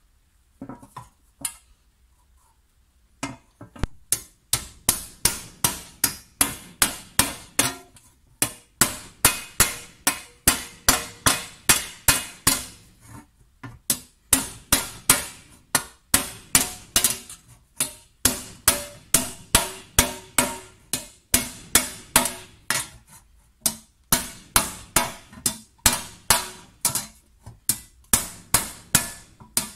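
Hand hammer striking a copper tray held over a wooden post, raising the copper. There are a few light taps at first, then steady blows about three a second, each with a short metallic ring, in runs broken by brief pauses.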